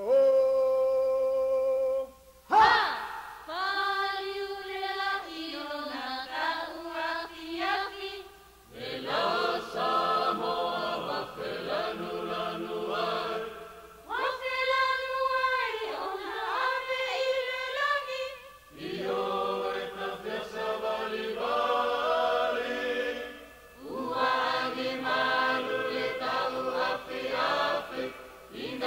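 A group of voices singing a Polynesian song with little or no accompaniment, in phrases of a few seconds with short breaks between them, heard from an old cassette recording with a faint low hum. A sharp, loud attack about two and a half seconds in is the loudest moment.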